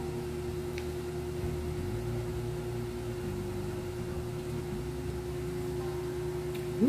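Steady low machine hum: one constant tone over a low rumble, unchanging throughout.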